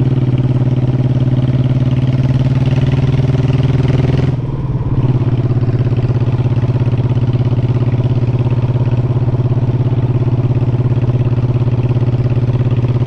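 Honda Shadow Sabre 1100's V-twin engine running steadily under way. About four seconds in the sound briefly drops away and the pitch falls, then it picks up and runs steady again.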